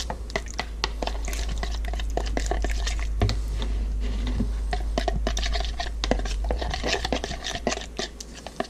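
Metal spoon stirring a thick pesto, lemon juice, garlic and olive oil marinade in a plastic measuring cup, with irregular clicks and scrapes as it knocks against the sides.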